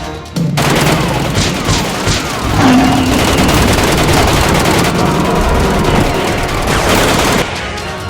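Rapid, continuous gunfire sound effects, a dense volley that starts abruptly and cuts off suddenly near the end.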